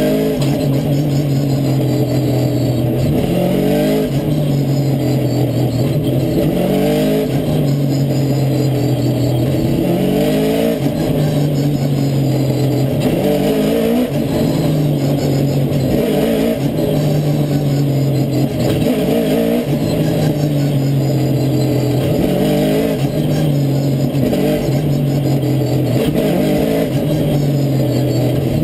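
Short-track stock car's V8 engine at racing speed, heard close to the rear bumper: the pitch holds, then climbs in repeated rising sweeps every few seconds as it revs through the corners and back on the throttle, with a steady rush of wind and road noise underneath.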